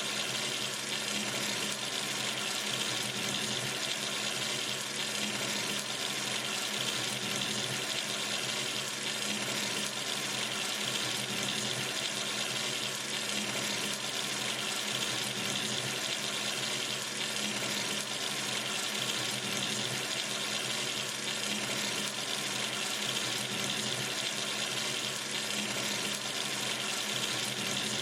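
Water running steadily from a sink tap into the basin, an even hiss of splashing water.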